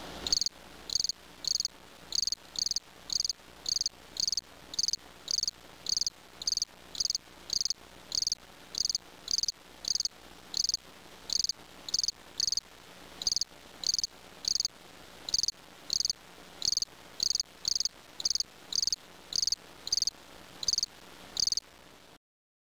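A cricket chirping: short, high-pitched chirps repeated evenly, a little under two a second, with a couple of brief pauses.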